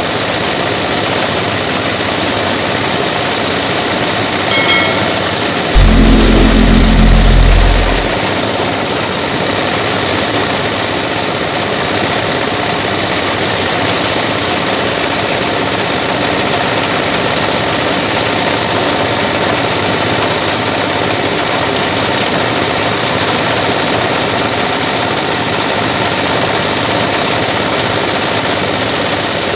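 Paddy thresher at work, its drum driven by a small single-cylinder diesel engine, running steadily as rice bundles are fed in. About six seconds in, a louder low rumble lasts about two seconds.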